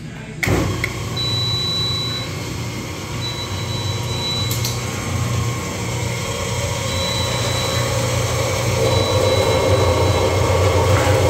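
Hobart 4246 mixer grinder switched on about half a second in, then running empty with a steady low hum as its three-phase motor turns the grinder's feed screw.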